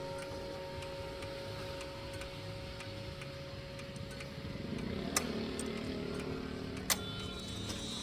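Vedette eight-rod, eight-hammer chiming clock: the ringing of its chime rods dies away, then the movement whirs, with two sharp clicks about five and seven seconds in, between chime phrases.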